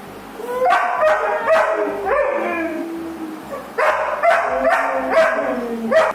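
Young German Shepherd barking: a run of high, yelping barks in two bouts with a short pause about three seconds in, the first bout trailing off into a longer falling whine.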